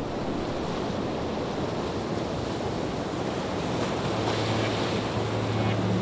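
Steady rush of sea waves and wind over open harbour water. A low steady hum comes in about four seconds in.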